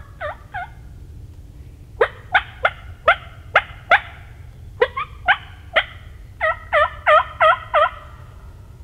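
Wild turkey yelps: a series of short, loud yelping notes, about three a second, coming in four runs with short pauses between them.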